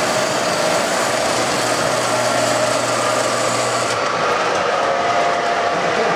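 O-gauge model trains running on the layout: a steady mechanical whir of small electric motors and wheels rolling on the track.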